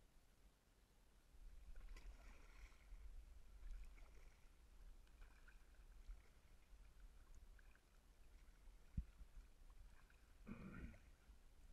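Faint, muffled kayak paddle strokes in the water, a few seconds apart, heard through a waterproof camera housing. A single short knock comes late on.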